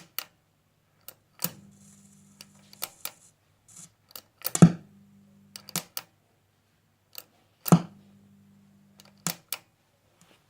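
Sharp switch clicks on the Echolette M40, about seven in all, with a low mains hum that comes on at one click and cuts off at the next, three times over, as the unit is switched on and off.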